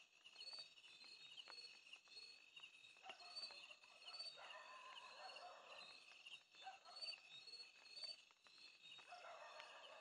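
Faint night chorus of insects chirping in a steady, high repeating pattern, with a fainter lower sound swelling twice, about four seconds in and near the end.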